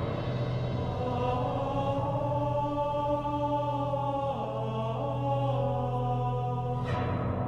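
Background music of sustained chanting voices over a steady low drone. The voices dip in pitch about four and a half seconds in, and a short rush of noise comes near the end.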